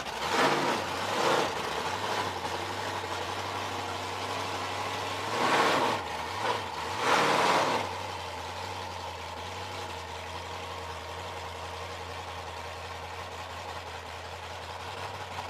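Supercharged 406 cubic-inch small-block Chevrolet V8 with a 6-71 blower, revved in four short blips in the first eight seconds, then idling steadily.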